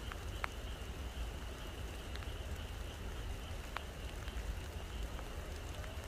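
Rain falling at night, with scattered drip ticks, over a steady high-pitched chorus of frogs. A low rumble runs underneath.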